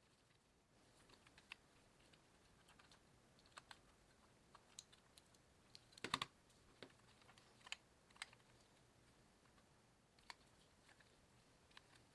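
Sparse light clicks and taps of small plastic toy parts and tools being handled, with a louder cluster of several clicks about six seconds in.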